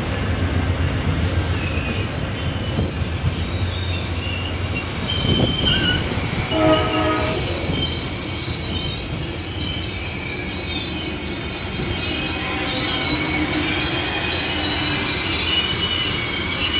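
Amtrak double-deck passenger cars rolling slowly past, their wheels squealing on the rail with a high, wavering screech over a steady rumble. A short horn sounds about seven seconds in.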